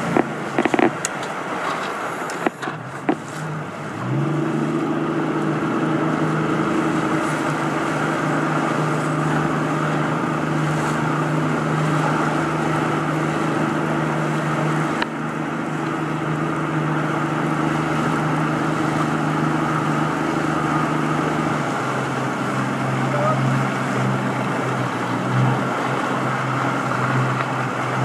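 Small motorboat's outboard motor running steadily over wind and water noise. It picks up about four seconds in, and its note changes about three-quarters of the way through.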